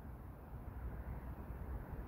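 Faint, steady low rumble of outdoor background noise, with no distinct event in it.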